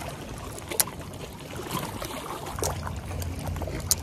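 Small waves lapping and splashing against shoreline rocks, with wind buffeting the microphone as a low rumble that grows heavier about two-thirds of the way through. Two sharp clicks cut through, about a second in and near the end.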